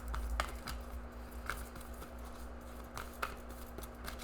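Faint handling of tarot cards: a few soft clicks and taps spread through the pause, over a steady low hum.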